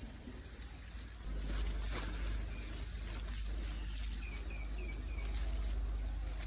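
Wind buffeting the microphone outdoors as a steady low rumble that grows stronger about a second in, with a brief rustle near two seconds and four short high chirps a little past the middle.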